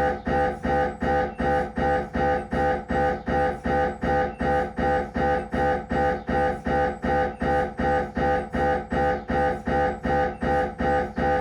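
Siemens Magnetom Avanto 1.5 T MRI scanner's gradient coils pulsing during a head-scan sequence: a steady, even rhythm of about three loud, pitched pulses a second.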